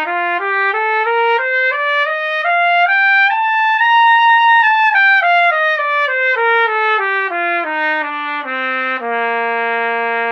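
Trumpet playing a two-octave C major scale in quick, evenly tongued steps, climbing to the top note about four seconds in, coming back down, and holding the low tonic from about nine seconds in. It is played as a resonance drill, the sound imagined as starting at a far-off object.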